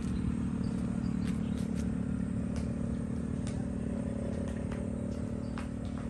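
A small engine running steadily at an even idle, with scattered faint clicks over it.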